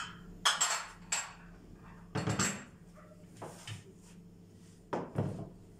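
Round aluminium pizza pans clattering and knocking as they are lifted and set down on the counter: a string of separate metallic knocks, spaced irregularly.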